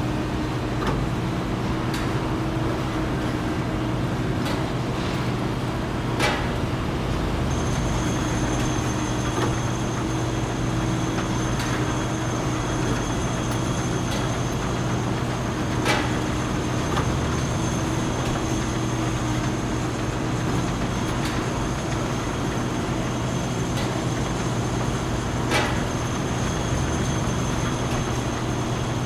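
Steady factory machinery noise with a low hum and a few sharp knocks. A thin high whine comes in about seven seconds in and holds.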